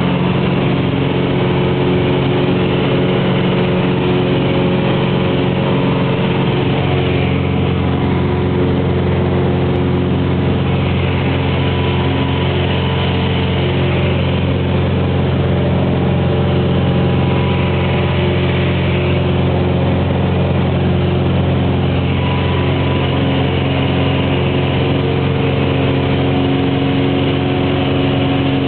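Cessna T-41's single piston engine and propeller droning steadily at takeoff and climb power, heard from inside the cabin.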